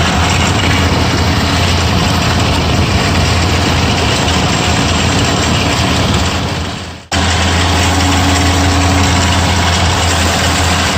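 Dodge Dakota pickup's engine idling steadily, with a dense steady rushing noise over the low hum. The sound fades out and cuts back in about seven seconds in.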